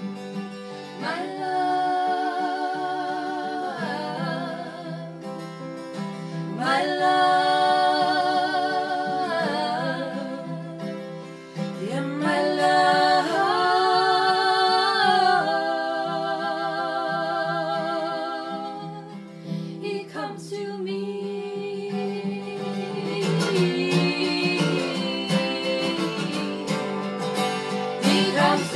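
Two women singing long held notes together over a strummed acoustic guitar. Some notes waver with vibrato.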